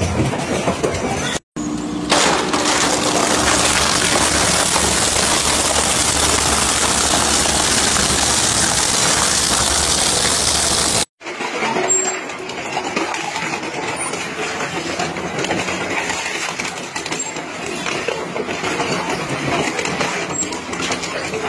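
Industrial shredders grinding material in successive clips, with abrupt cuts between them. A long stretch of loud, dense grinding ends suddenly about eleven seconds in. It is followed by a quieter crunching and clattering as a twin-shaft shredder chews through metal cans and plastic buckets.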